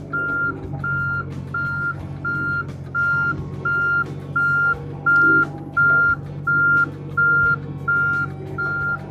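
John Deere mini-excavator's motion alarm beeping steadily, about three beeps every two seconds, over the machine's engine running. The beeper sounds whenever the machine travels and resets each time it changes direction.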